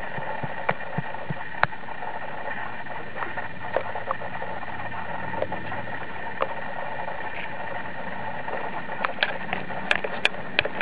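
Steady rush of flowing water, with scattered clicks and crackles of dry leaves and handling as a toy horse is moved over the forest floor; a quick cluster of sharper clicks comes near the end.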